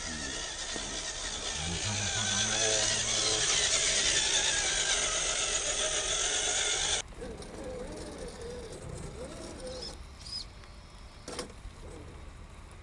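Electric motors and geared drivetrains of scale RC crawler trucks whining as they drive over dirt, the pitch wavering with the throttle. Loud for the first seven seconds, then it drops away suddenly to a quieter whine, with one sharp click near the end.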